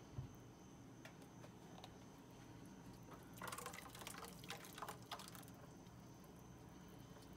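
Faint wet scraping and plopping as a thick blended huitlacoche purée is scraped with a silicone spatula out of a plastic blender cup into a pan of cream sauce, mostly in a short spell about three and a half seconds in. A soft knock comes just after the start.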